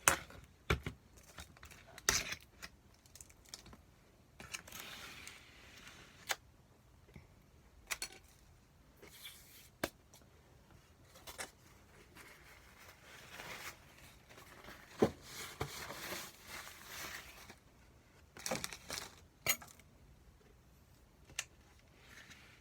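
Plastic delivery-food packaging rustling and crinkling, with scattered light clicks and taps from handling the containers.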